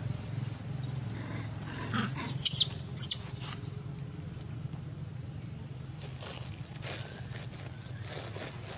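Long-tailed macaque screaming: two high-pitched squealing calls about two seconds in, the second a second later and shorter. A steady low hum runs underneath.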